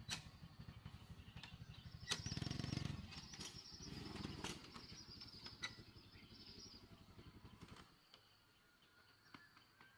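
Small engine of a Yamaha step-through motorcycle running as it rides across grass, revving up about two seconds in, then shut off about eight seconds in.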